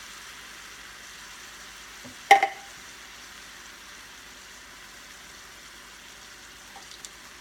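Ground beef frying in a pot with a steady sizzle. About two seconds in there is one sharp, loud clank with a short ring.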